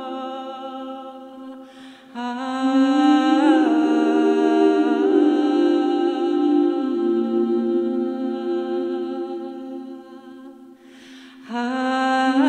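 A woman singing long, held notes into a microphone in a chant-like style, pausing briefly between phrases about two seconds in and again near the end.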